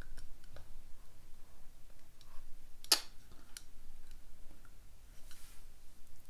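Light clicks and taps from a small clear plastic vial and paintbrush being handled over a plastic enclosure, with one sharper click about three seconds in.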